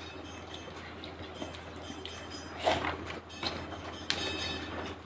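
Close-miked eating of chicken curry with rice: soft chewing and mouth noises, with two sharper crunch- or clink-like sounds, the louder about halfway through and another near the end, over a low steady hum.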